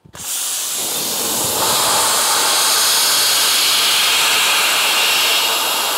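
Dry ice blaster at its highest pressure, about 120 PSI, firing a jet of dry ice onto a painted car bumper: a loud, steady hiss that starts abruptly.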